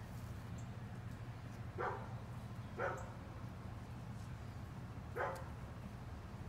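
A dog barking: three short single barks a second or two apart, over a steady low hum.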